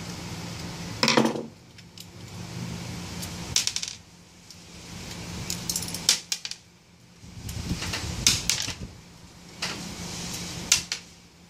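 Metal parts of a vacuum cleaner motor clinking as they are worked by hand: about five sharp clinks a couple of seconds apart, over a steady low hum.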